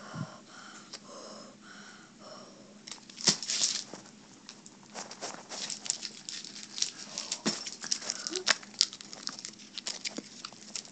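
Quiet breathing and sniffs with many small wet mouth clicks and smacks from sucking on a hard cough drop, with one louder breath about three seconds in.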